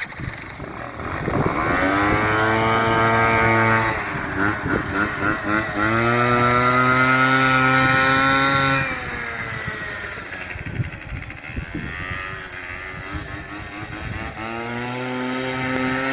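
Peugeot Speedfight 2 scooter's two-stroke engine revving. It climbs to a high, steady note three times, each held for a few seconds, and drops back to a lower, wavering note in between.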